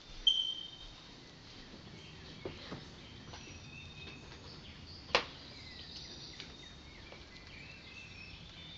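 Outdoor ambience of birds and insects chirping faintly. A short high squeak sounds just after the start and is the loudest thing, and a sharp click comes about five seconds in.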